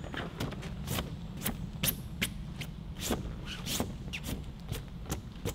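Footsteps crunching in leaf litter and handling of a wet canvas tent: irregular sharp crackles and clicks, a few a second, over a low steady rumble.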